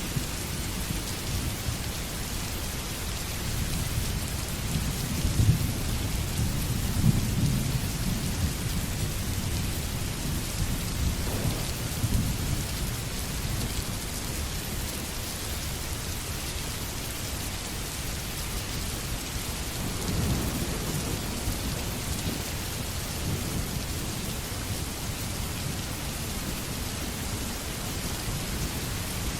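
Steady heavy rain falling, with rolls of thunder rumbling in and out: a long roll a few seconds in, a shorter one near the middle, and another about two-thirds of the way through.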